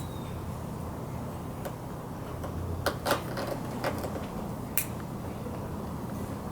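A few short clicks and scuffs from working an old rubber grip off a motorcycle handlebar, over a steady low hum. The clicks come about three seconds in and again around four and five seconds.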